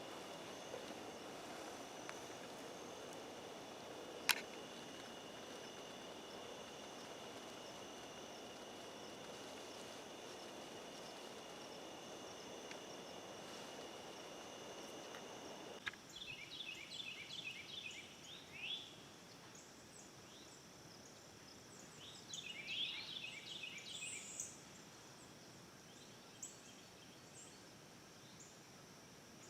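Faint woodland ambience: a steady high insect drone with a sharp click about four seconds in, then an abrupt change about halfway to a quieter background where a bird gives two bouts of rapid, repeated chirping calls.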